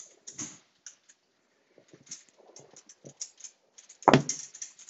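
Handling of a cardboard iPhone 11 box: scattered small clicks and rustles, then a louder knock about four seconds in as the box comes down on the countertop and its lid is lifted off.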